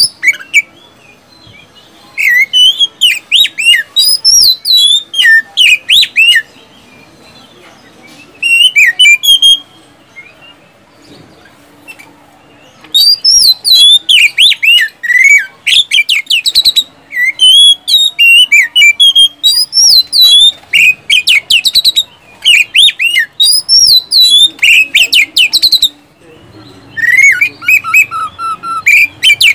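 Oriental magpie-robin (kacer) singing loudly in long runs of rapid, sweeping whistled notes and sharp phrases, broken by two short pauses a few seconds in and about a third of the way through.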